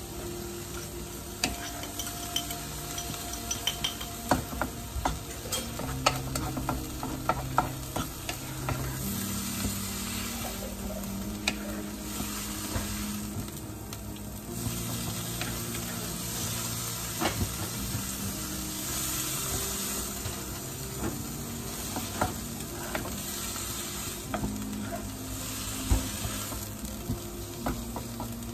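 Bean sprouts sizzling in a non-stick wok as a wooden spatula stirs and tosses them. Frequent light knocks and scrapes of the spatula against the pan come over a steady frying hiss.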